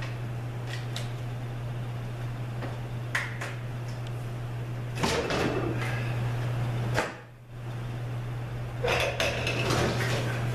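Metal parts of a Subaru 4AT automatic transmission clinking and knocking as they are pulled out and set down during teardown, with busier spells of handling about halfway through and again near the end. A steady low hum runs underneath.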